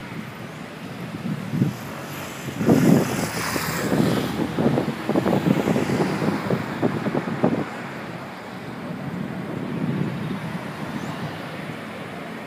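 City street traffic noise, with a louder stretch of uneven low rumbling from about two and a half to seven and a half seconds in, as vehicles pass close by.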